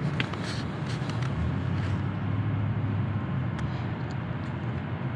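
Steady low rumble of outdoor traffic and machinery around a car park charging stall, with a faint sharp click about three and a half seconds in.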